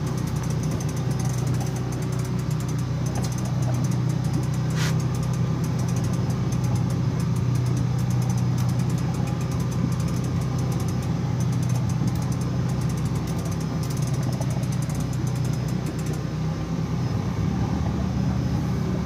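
A boat's engine running with a steady low hum, with faint clicking over it and one short sharp sound about five seconds in.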